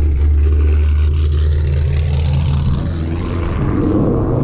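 Car engine and exhaust rumbling steadily at low revs, its pitch shifting about three seconds in, with a hiss over it.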